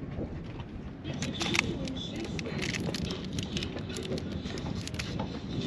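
Light crinkling and clicking of aluminium foil as pieces of marinated tuna are picked up off it, over a steady low background noise.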